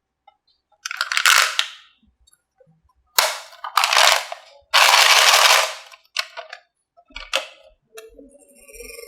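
Marbles rolling down a wooden HABA marble run: several runs of rolling rattle, each up to about a second long, then a few sharp clacks as marbles knock against the track. A faint pitched tone starts near the end.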